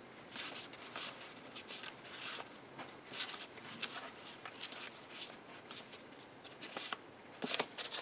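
Stack of 3x4 cardstock pocket cards being handled and shuffled: faint, scattered rustles and light taps of card on card, with a couple of louder taps near the end.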